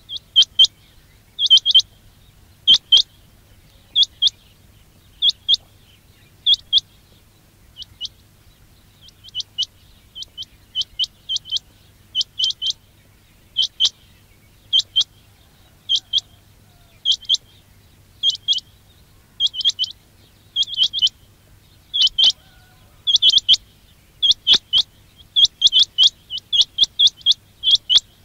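Quail calling: short, sharp high notes in quick pairs and triplets, repeated about once a second.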